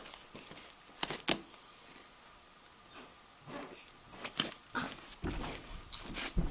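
Fluffy shaving-cream slime being poked, folded and squeezed by hand, with two sharp pops of trapped air a little over a second in and a run of softer squishing and crackling pops from about halfway on.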